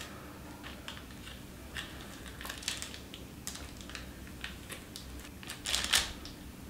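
A knife cutting through a sheet of kaju katli topped with silver leaf, its blade pressing down onto the plastic sheet beneath: faint, scattered ticks and crackles, loudest in a short run near the end.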